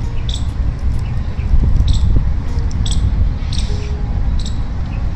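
Outdoor park ambience: a steady low rumble with short, high bird chirps scattered through it.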